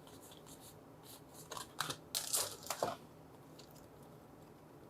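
Trading cards and pack wrapping being handled: a cluster of short rustles, crinkles and card flicks about a second and a half in, faint otherwise.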